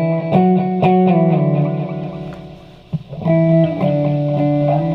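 Clean electric guitar played through a Guyatone MD3 micro digital delay pedal with every knob at noon. Chords ring and fade, picked again a few times, with a new chord struck about three seconds in.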